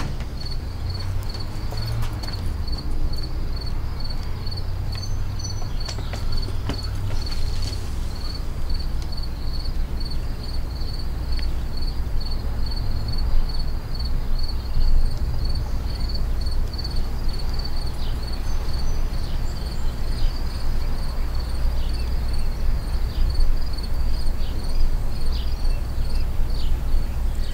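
Crickets chirping in a steady, evenly pulsed rhythm over a low, steady rumble.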